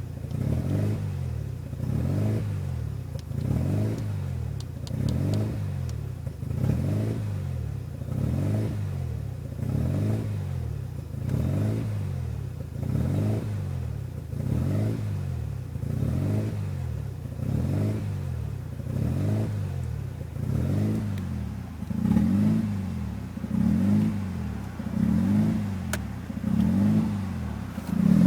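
1993 Mazda RX-7's twin-rotor 13B rotary engine idling roughly, its speed surging and sagging in an even rhythm every second or so; the surges grow stronger near the end. This is the hunting idle that came on after an aftermarket Power FC engine computer was installed.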